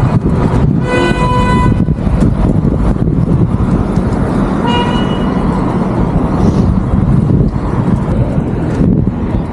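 Strong wind buffeting the microphone in a steady low rumble. A vehicle horn honks twice: a longer toot about a second in and a short one around five seconds in.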